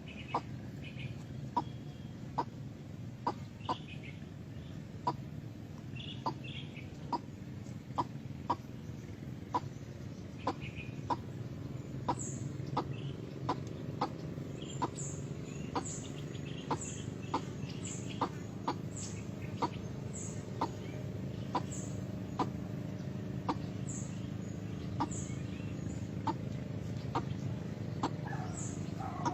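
White-breasted waterhen calling: short, clucking notes repeated steadily a little more than once a second. From about halfway through, higher, falling squeaky notes join in. A steady low rumble runs underneath.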